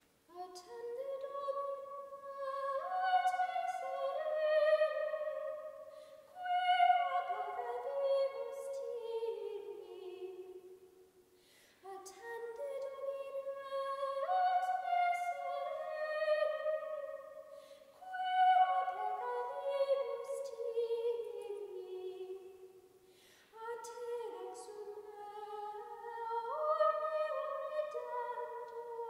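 Solo unaccompanied soprano singing Gregorian chant in Latin, recorded in a church. She sings five phrases of about five seconds each, with a short breath between them.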